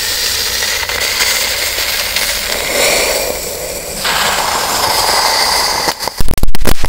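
A firework burning inside an empty aluminium drink can: a loud steady hiss with a faint whistle that changes tone about four seconds in, burning through the can. Near the end comes a rapid string of sharp bangs.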